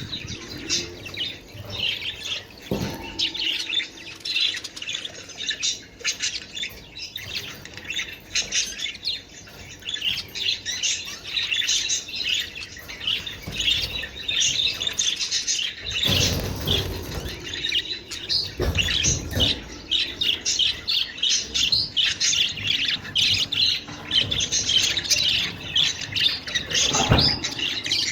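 A flock of budgerigars chirping and chattering, with a constant run of rapid short chirps and squawks. A short low rumble comes about sixteen seconds in, and a brief knock near the end.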